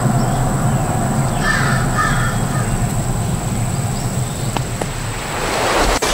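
A bird calls twice in quick succession, harsh calls of the crow kind, over a steady low rumble. Near the end a rushing noise swells and cuts off abruptly.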